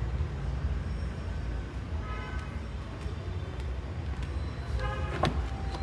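Low steady room rumble, with a sharp click about five seconds in as the car's door latch is pulled and the door opened.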